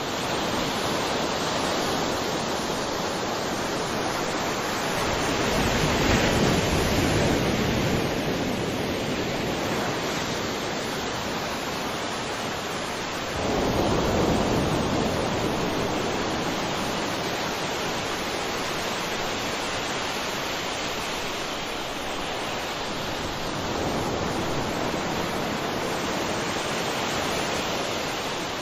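Ocean surf: a steady wash of waves with breakers swelling and falling, a larger wave breaking about halfway through.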